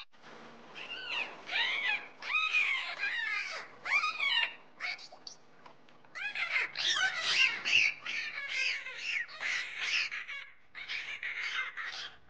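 Bottlenose dolphin calls: a rapid run of short squeaks and chirps, each rising then falling in pitch, coming in bursts with brief pauses.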